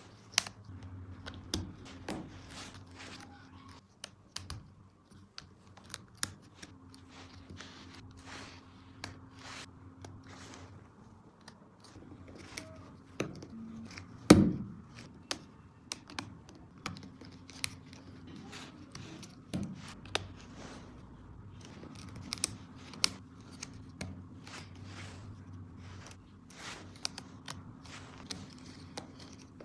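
Plastic toy track pieces and toys clicking and clattering as they are handled, with one louder knock about halfway through. A faint low hum comes and goes underneath.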